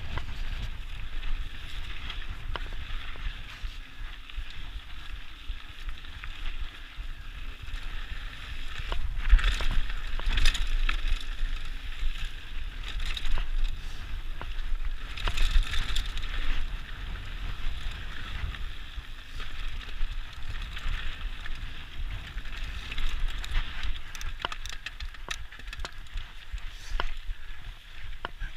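Mountain bike riding over a rough dirt singletrack: a steady rush of tyres on dirt and wind on the microphone, with many small clicks and knocks from the bike rattling over rocks. It gets louder and rougher about nine to eleven seconds in and again around fifteen seconds.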